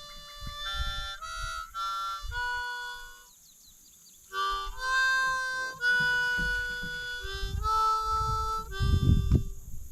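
Harmonica music: held chords that change every half second to a second, with a short break about three seconds in. Low rumbling thumps sit underneath, strongest near the end.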